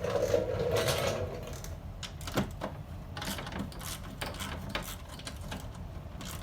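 Irregular metallic clicks and knocks of hand tools and hardware working the window regulator's mounting bolts inside a car door, after a short rough rustle near the start.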